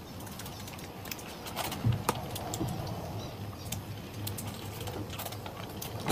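A person chewing broccoli close to the microphone: scattered crisp crunches and wet mouth clicks, the loudest about two seconds in.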